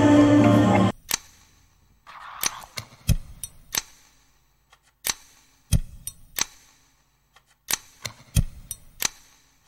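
Music cuts off about a second in, followed by about a dozen sharp, irregular clicks and knocks. Three heavier knocks with a low thud come about two and a half seconds apart.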